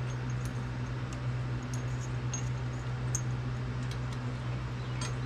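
A steady low hum, with a few faint light metallic clicks as rocker arms are fitted back over the push rods by hand on a Briggs & Stratton OHV engine head.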